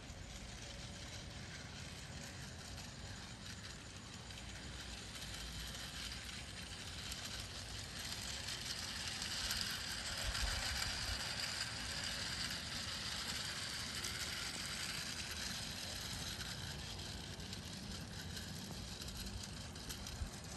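Battery-operated toy train's small motor and gears running with a whirring, ratchety clatter as it travels along HO-scale track, growing louder as it passes close about ten seconds in and then easing off. A sharp click near the end.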